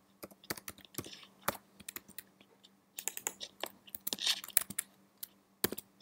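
Typing on a computer keyboard: a quick, irregular run of keystrokes with short pauses between bursts.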